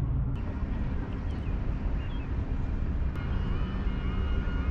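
Small outboard motor running steadily on a dinghy under way, with wind on the microphone. A wavering high-pitched wail comes in about three seconds in.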